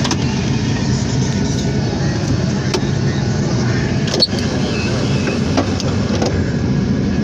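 Steady roar of roadside traffic and vehicle noise, with a sharp click about four seconds in.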